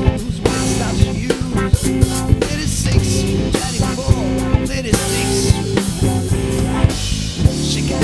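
A rock band playing an instrumental passage: drum kit with kick drum and snare keeping a steady beat under bass guitar and electric guitar.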